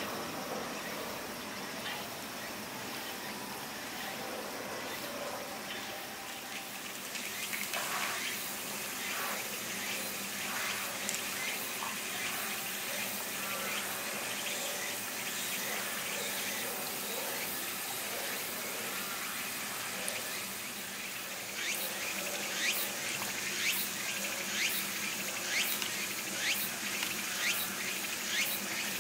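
Steady outdoor hiss of water and insects, with a run of sharp ticks about twice a second in the last seven seconds.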